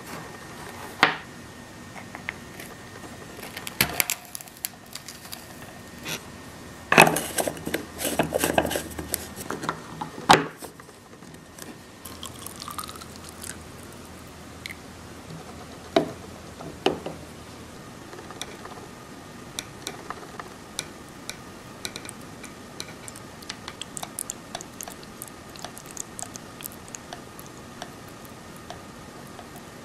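Cafflano Kompresso portable espresso maker being handled and brewed. Scattered knocks and a dense clatter of plastic parts come in the first third. Hot water is poured into its glass cylinder near the middle, rising in pitch as it fills. The last third is a long run of small quick drips and ticks as espresso trickles into the cup.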